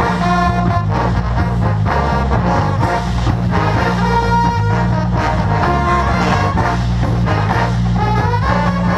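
School marching band playing loud and steady, with the brass section carrying the tune over a moving bass line.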